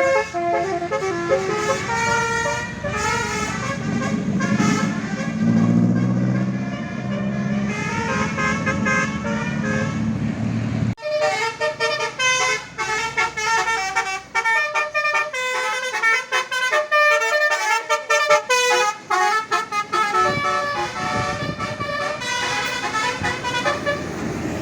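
Bus telolet horn, a Basuri multi-tone musical horn, playing a tune of stepped pitched notes. The sound changes abruptly about eleven seconds in, and a second run of quick horn notes follows.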